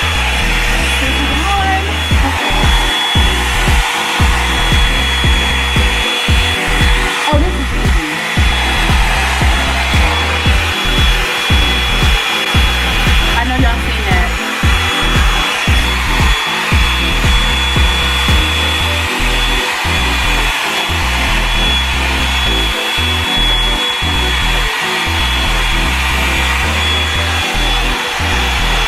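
Revlon One-Step Volumizer hot-air brush dryer running steadily, a rushing air noise with a steady high whine, under background music with a regular beat.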